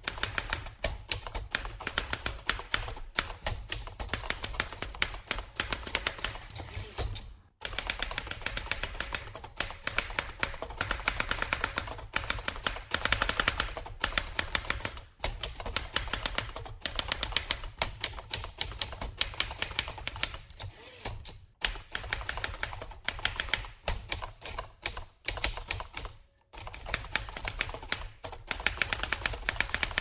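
A large typewriter being typed on: rapid runs of key strikes, broken by four short pauses.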